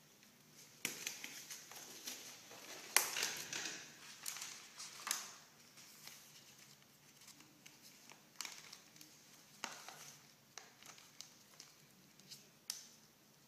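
Blue exam gloves being pulled onto the hands, then plastic-and-paper medical supply packets handled and opened: scattered crinkling and rustling with sharp clicks and taps, the loudest about three seconds in.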